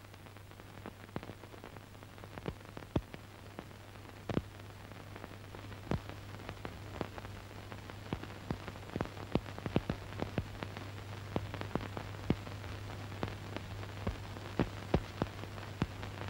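Soundtrack noise from an old film print: a steady low hum under irregular crackles and pops, which grow denser and louder toward the end.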